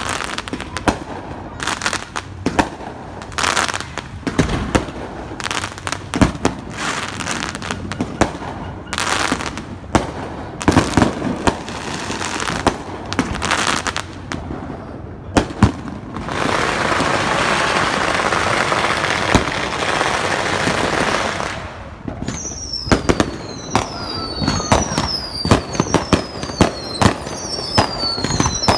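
Fireworks going off: many bangs and crackling pops, with a steady loud hiss for about five seconds past the middle. From about two-thirds of the way in, a short high falling whistle repeats about once a second among the bangs.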